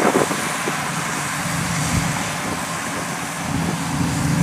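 Kubota DC-70 Pro combine harvester's diesel engine running steadily under load while it cuts rice: a steady low hum under a hiss of machine noise.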